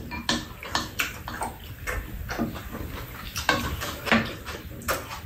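Close-up eating sounds of two people sharing stir-fried fish cakes: chewing and mouth noises, with scattered sharp clicks of spoons and chopsticks against bowls and the pan.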